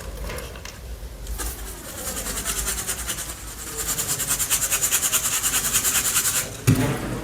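Grey powder being sifted through a mesh sieve: a rapid, even rhythm of scratchy shaking strokes that grows louder, then a single low thump near the end.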